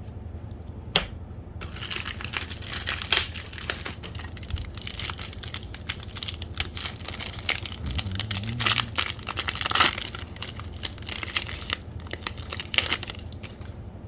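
A foil wrapper from a pack of baseball trading cards being torn open and crinkled: dense crackling with sharp snaps that starts about two seconds in and dies down near the end.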